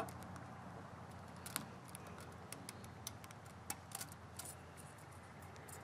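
Faint, irregular small metallic clicks and ticks of a thin steel oil-ring rail being worked by hand into the ring groove of a forged piston, over a low steady hum.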